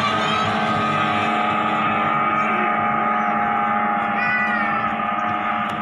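Outboard motors of racing 14-foot speedboats running flat out in a steady drone that holds one pitch. A short rising-and-falling sound cuts in about four seconds in.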